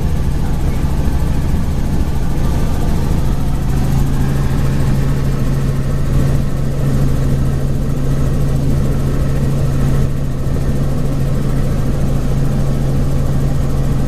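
Helicopter in flight: a loud, steady drone of engine and rotor with a constant low hum.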